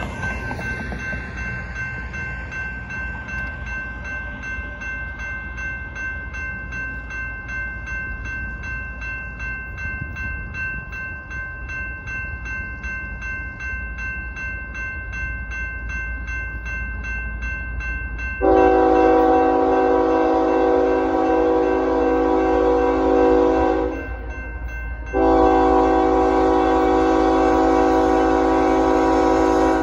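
Electronic grade-crossing bell ringing steadily as the lights flash. About 18 seconds in, an approaching freight locomotive's air horn sounds two long blasts with a short gap between them, the opening of the long-long-short-long grade-crossing signal.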